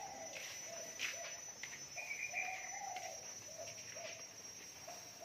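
Faint, repeated short animal calls, a dozen or so in quick succession, over a steady high-pitched insect hum.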